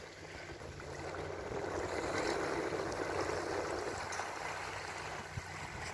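Outdoor rush of wind and lake water washing at the shore, swelling about two seconds in and easing after about four seconds, over a faint low steady hum.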